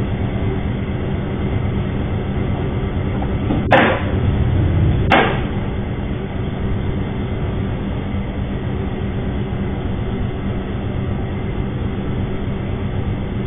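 Steady background noise with a low hum, the kind picked up by a security camera's microphone. Two brief, loud noises come about four and five seconds in, a second and a half apart.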